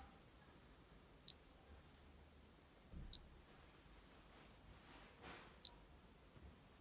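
Casio DBW-32 Data Bank digital watch beeping as its buttons are pressed: four short, high-pitched beeps, a second or two apart, with faint finger-handling rustle between them.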